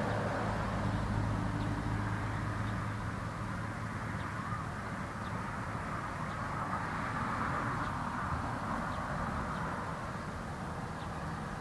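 Steady outdoor background noise with the low hum of a distant engine, which fades out about halfway through. Faint soft ticks come about once a second.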